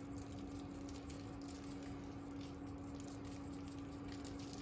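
Lemon-pepper seasoning shaken from a small glass spice jar over a tray of sliced vegetables: faint, irregular pattering of the granules over a steady low hum.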